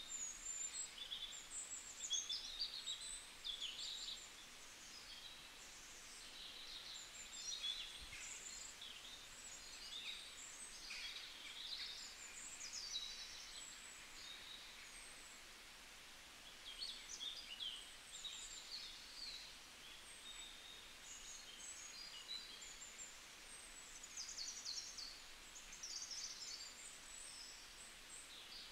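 Small birds chirping and twittering faintly in short high bursts that come and go.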